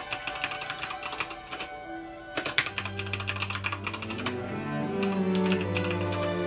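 Rapid typing on a mechanical keyboard, a dense run of key clicks, over background music. About three seconds in, low sustained notes come into the music beneath the clicks.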